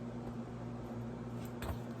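Washing machine running: a steady low hum with a constant drone, and a faint light click near the end.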